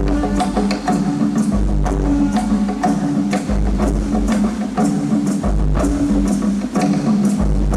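Indigenous-style music: a busy pattern of wood-block-like percussion strikes over a deep drum pulse and sustained low notes.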